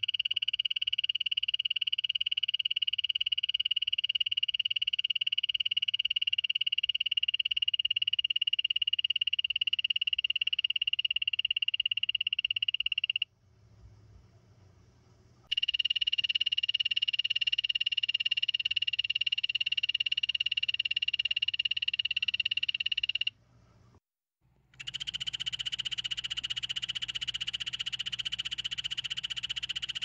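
Yellow-banded poison dart frog (Dendrobates leucomelas) calling: three long, high-pitched trills. The first lasts about thirteen seconds and the second about eight, each after a brief pause, and the third starts near the end and runs on.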